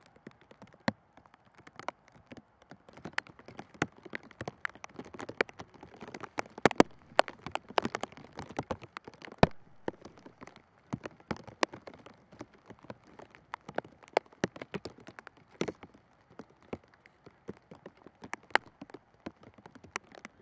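Footballs being kicked back and forth in a passing drill: irregular sharp thuds, several a second, some close and loud, others fainter.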